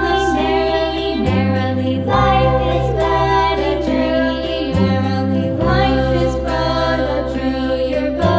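Background music: a song with a sung melody over sustained bass notes, in phrases that change every few seconds.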